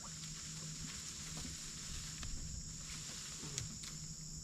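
Crickets or other insects chirping in a steady high chorus, over a low steady hum and a few faint clicks.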